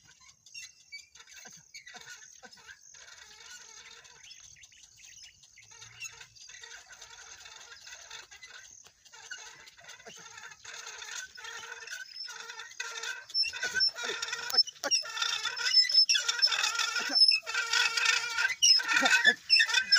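Rapid, repeated squeaking from an ox-drawn plough pulled by a pair of zebu oxen, faint at first and growing steadily louder over the second half as the team approaches.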